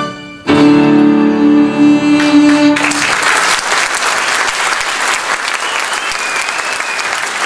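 Violin and piano end on a final held chord lasting about two seconds. An audience then breaks into applause, which carries on to the end.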